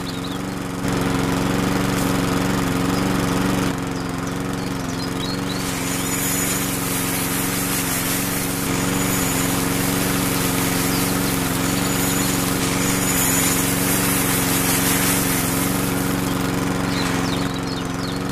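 Small electric motor running steadily, driving a miniature shaking sieve through a crank arm. A hissing rattle of sand and grain sifting through the mesh comes in about six seconds in and carries through most of the rest.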